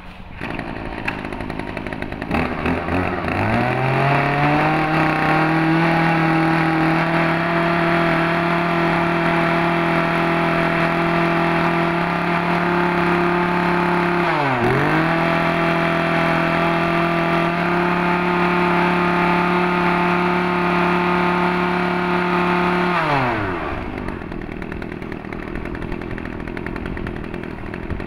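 Mitsubishi TBE27 27cc two-stroke brush cutter engine starting about two seconds in and climbing to a steady running speed. Its speed dips sharply for a moment about halfway through and recovers. A few seconds before the end it winds down and stops.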